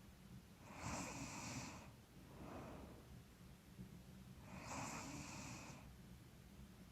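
A sleeping woman's faint snoring breaths: two louder, rasping breaths about four seconds apart, each followed by a softer one. The uploader puts the snoring down to being a little stuffy.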